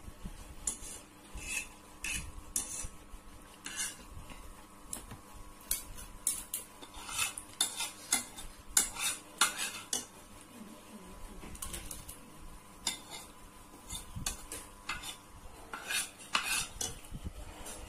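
Metal spoon and fork clinking and scraping against a bowl as the last of the fried noodles are gathered up. The clinks come irregularly, with busier clusters about halfway through and near the end.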